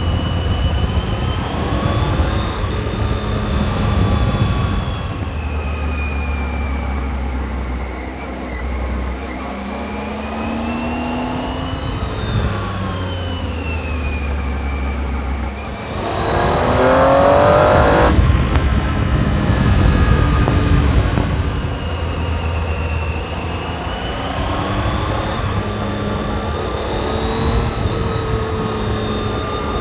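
Triumph Tiger 800 XRx's three-cylinder engine through its stock exhaust, heard from the rider's helmet while riding, its pitch rising and falling with the throttle. About sixteen seconds in it accelerates hard, the loudest part, with the pitch climbing steeply for about two seconds.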